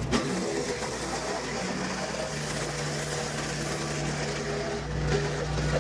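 A Kubota L3560 diesel tractor runs a PTO-driven WoodMaxx WM-8M wood chipper as it chips pin oak limbs, giving a steady machine hum. Short sharp knocks and crackle come from wood going through the chipper, with a loud knock just after it begins.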